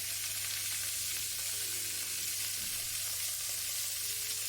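Green beans frying in olive oil in a pan, giving a steady sizzle.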